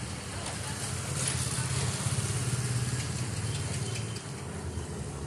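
A motor vehicle's engine running, a steady low hum that grows louder about a second in and eases off about four seconds in.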